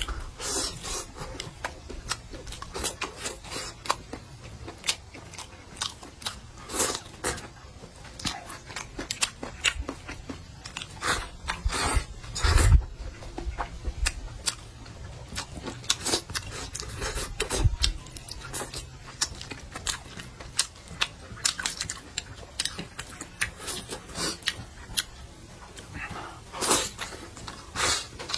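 A person chewing and biting crunchy goose gizzard, with many irregular crisp crunches and mouth clicks and a few louder bites.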